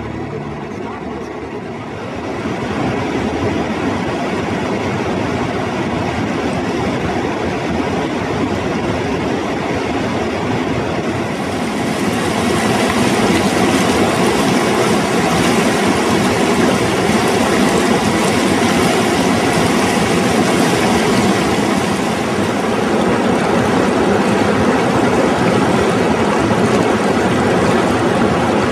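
The Zambezi River rushing over rapids: a loud, steady roar of water that grows louder about two seconds in and brighter and hissier about twelve seconds in.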